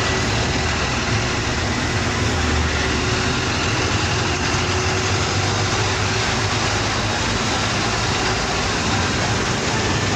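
A bus under way: steady engine and road noise at an unchanging level.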